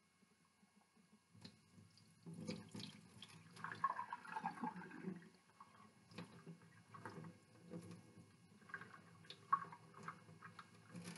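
Rice being rinsed in a rice cooker pot at a stainless steel sink: water swished through the grains by hand, then the starchy rinse water poured off into the sink in uneven splashes and trickles. It starts about a second in and grows louder a second later, with a few light clicks.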